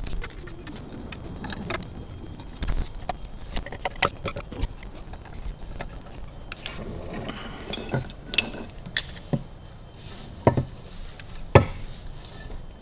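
Hand tools and metal parts clinking and knocking at irregular intervals as screws are fitted and tightened on the cases of a Harley-Davidson WLC 45 engine, with a short metallic ring a little past the middle and the two sharpest knocks near the end.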